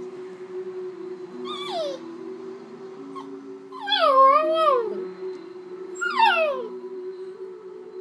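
Small dog howling three times, each howl sliding down in pitch; the middle one, about four seconds in, is the longest and loudest. Quiet music plays from a television underneath.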